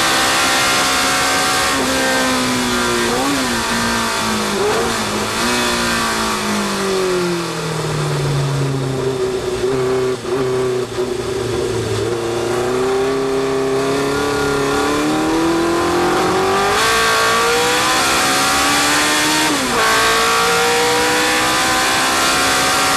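A historic sports racing car's engine, heard from inside the cockpit. It slows hard from high speed, the pitch falling with two quick throttle blips on the downshifts about 3 and 5 seconds in, and runs at low revs through a slow hairpin. It then accelerates hard, the pitch climbing with one upshift about 20 seconds in.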